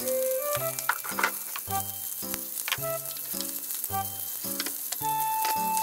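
Pork belly skewers sizzling in a frying pan, with a few chopstick clicks against a bowl as natto and avocado are stirred. A melodic background music tune plays throughout.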